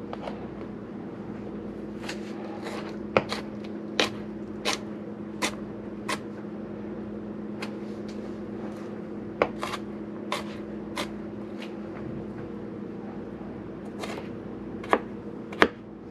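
Knife tapping on a cutting board while produce is cut, in irregular sharp clicks about one to two a second with pauses, over a steady low hum.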